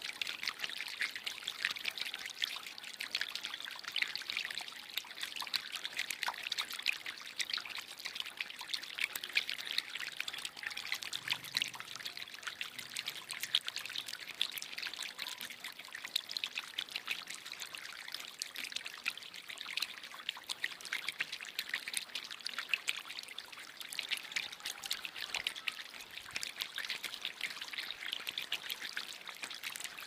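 A thin stream of water pouring from a spout onto flat stones, splashing steadily and trickling off over the rock edge.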